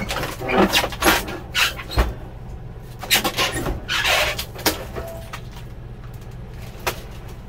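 An RV refrigerator's ammonia absorption cooling unit being wrenched free of its foam-insulated cabinet: a quick run of cracks, knocks and creaks, with a longer scrape about four seconds in, as the injected foam bond breaks and the metal unit shifts. It settles to a single knock near the end.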